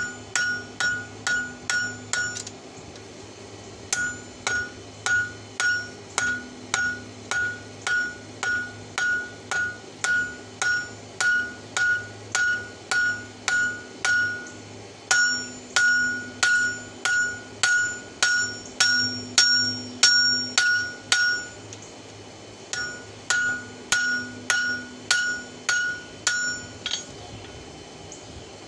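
Hand hammer striking glowing-hot steel on an anvil, forging the open end of an old wrench into fork tines. The blows come about two a second, each with a bright metallic ring. They fall in three runs broken by short pauses and stop shortly before the end.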